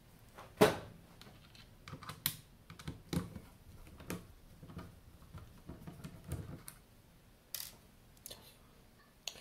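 Irregular light clicks and knocks from hands handling the metal case of an avionics display unit, the loudest a sharp knock about half a second in.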